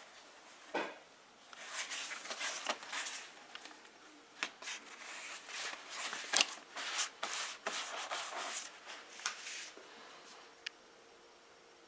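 Hands rubbing and handling a leather seat cover backed with muslin on a worktable: irregular rustling and scuffing strokes for several seconds, with a soft knock just before they start and a click near the end.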